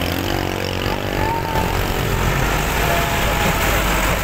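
Tractor diesel engine running steadily as the tractor drives through soft sand.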